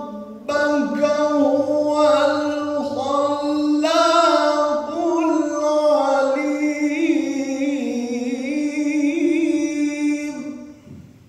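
A man reciting the Quran in the melodic mujawwad style, drawing out one long ornamented phrase with wavering, trilled pitch. The phrase begins about half a second in and trails off near the end.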